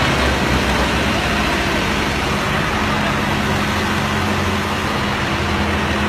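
Tractor diesel engine running steadily, a low drone under a dense hiss of noise.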